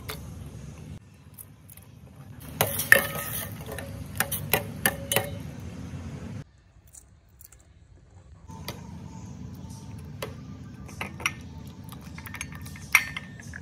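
Metal utensils clinking against a stainless steel cooking pot in short, separate taps over a low steady hum. The clinks come in two clusters, with a quieter stretch of a couple of seconds between them.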